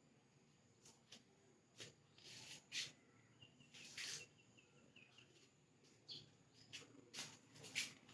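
Near silence: faint room tone with scattered soft clicks and, in the middle, a short run of faint high chirps.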